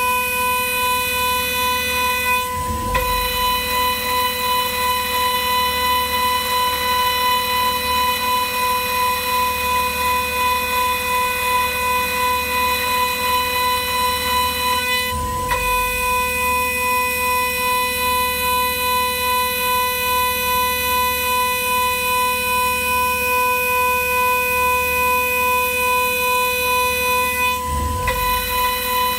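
High-speed vertical spindle of a Ringmaker CNC jewelry milling machine, giving a steady high whine with overtones while a fine cutter mills the side of a ring. The whine wavers slightly in level and breaks off briefly three times.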